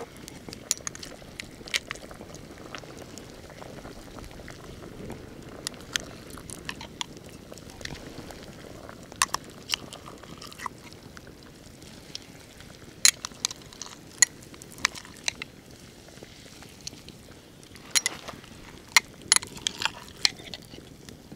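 Campfire crackling: irregular sharp pops and snaps of burning wood over a low, steady rush.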